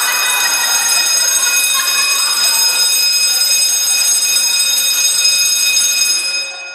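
Fire alarm system's electronic buzzer sounding one continuous, loud, shrill tone, set off by a smoke detector under test; it cuts off abruptly near the end.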